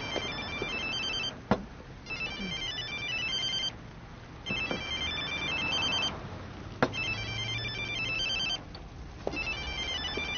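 Mobile phone ringtone: a short electronic melody of high tones that repeats about every two and a half seconds, with a couple of sharp clicks between the rings.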